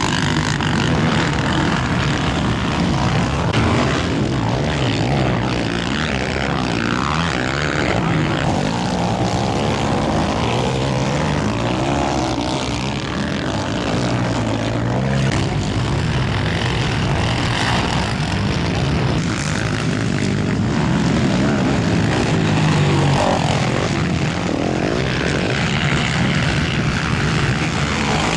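Racing ATV quad engines revving up and down as they run the motocross track, several engines overlapping with pitch rising and falling continually.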